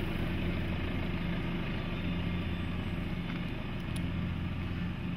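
Jeep Cherokee's 2.2-litre four-cylinder diesel engine running with a steady low hum as the SUV crawls slowly over a wooden beam.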